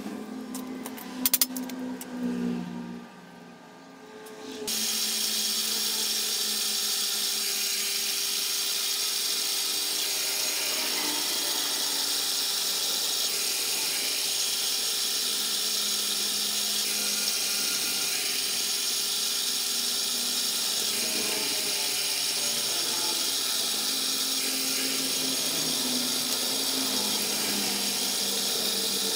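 An electric power tool starts about five seconds in and runs at a steady speed for over twenty seconds before cutting off right at the end. It is preceded by a few handling clicks and knocks.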